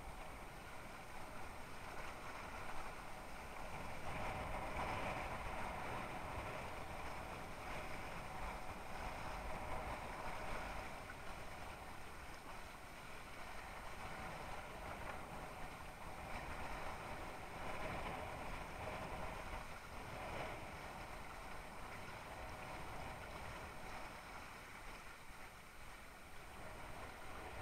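Water rushing and splashing against the hull of a Mistral Superlight windsurf board sailing through chop, with wind rumbling on the microphone. The rush swells louder a couple of times as the board picks up speed.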